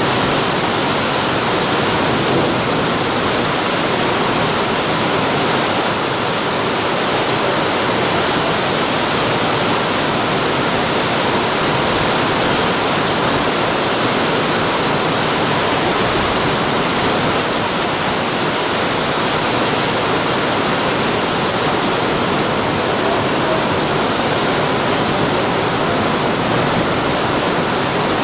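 Torrential storm rain pouring down steadily onto an asphalt road: a loud, even, unbroken hiss of falling water.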